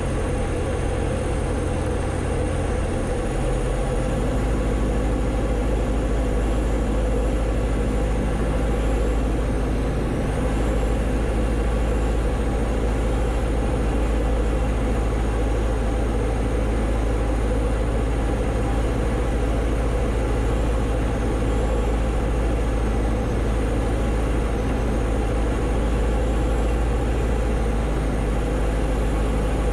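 Diamond DA-20's piston engine and propeller running steadily, a loud drone heard from inside the cockpit, on descent for landing. The engine note shifts about four seconds in and then holds steady.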